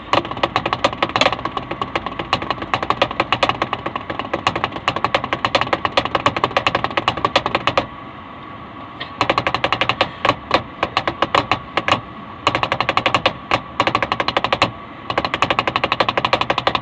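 Rapid drumming: a fast, continuous run of sharp drum strokes, many a second, broken by short pauses about eight seconds in, around twelve seconds and near fifteen seconds.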